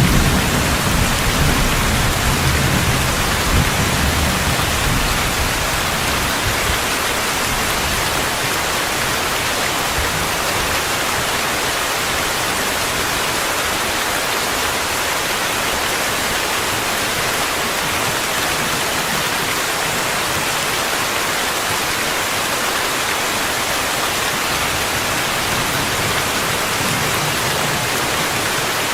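Steady, dense rainfall hiss. A low thunder rumble dies away over the first few seconds.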